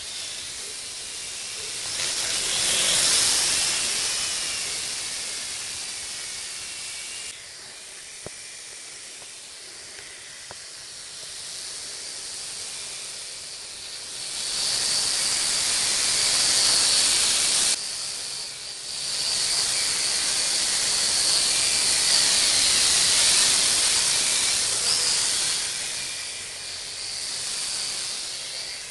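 The small electric motors and propellers of a WLtoys V929 mini quadcopter whining high-pitched, swelling and fading as it flies nearer and farther and changes throttle. The whine is loudest in the second half and drops out abruptly for about a second partway through before returning.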